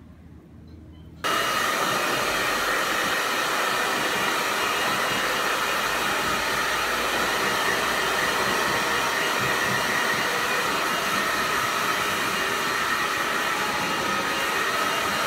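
Handheld hair dryer blowing on wet hair, a loud steady whir that begins suddenly about a second in.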